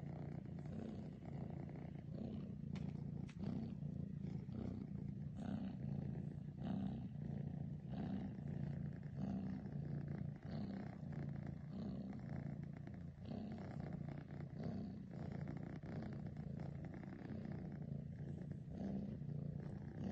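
Domestic cat purring while being stroked: a continuous low purr that swells and eases in a steady rhythm.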